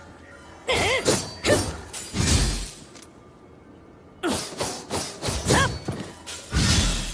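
Katana sword sound effects: two flurries of sharp metallic strikes and swishes with a ringing tone that bends in pitch. Each flurry ends in a heavy low thud, the first about two and a half seconds in and the second near the end.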